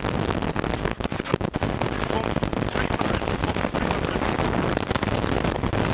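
Ford Escort RS1800's Kugel-Fischer-injected BDA engine running hard, heard from inside the cabin through a poor, distorted recording. There are sharp crackles and pops in the first second and a half.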